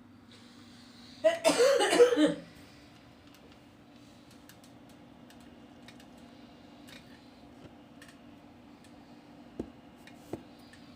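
A short vocal sound lasting about a second, over a low steady hum, followed near the end by two faint clicks.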